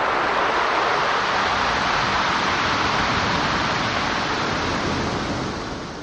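Pacific Ocean surf washing over a gravel and pebble beach: one wave surges in, holds as a steady rush for several seconds, and draws back, fading near the end.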